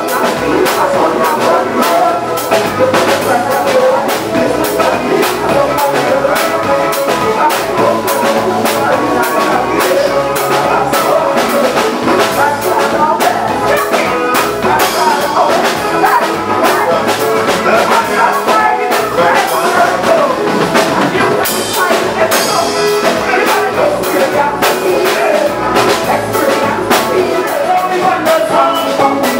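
Live soca band playing, with a drum kit keeping a steady, driving beat under brass horns.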